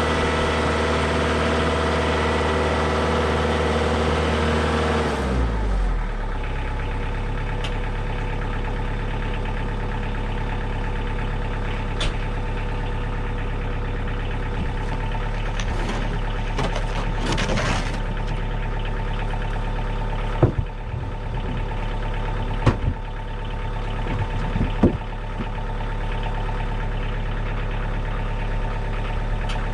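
Diesel tractor engine running at raised revs, then throttled back about five seconds in, its pitch falling, to a steady idle. A few sharp knocks sound over the idle in the second half.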